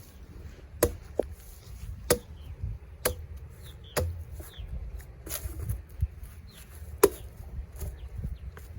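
Chopping blows into the soft, fibrous base of a dead papaya tree: five sharp strikes about a second apart, with a longer pause before the last one.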